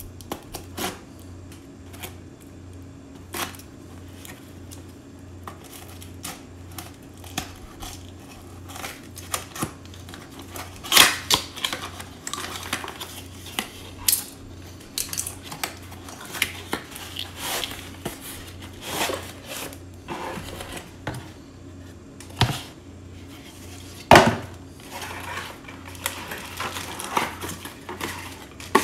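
A cardboard box being cut open and unpacked by hand: a blade slitting the packing tape, flaps being folded back and the contents pulled out, in scattered scrapes, taps and rustles, with two sharper knocks, one a little before halfway and one near the end. A low steady hum runs underneath.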